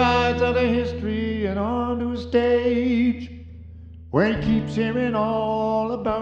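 A man's voice singing long held notes with vibrato over a strummed nylon-string Godin guitar. The voice drops out for about a second midway, leaving a sustained low guitar note, then comes back in.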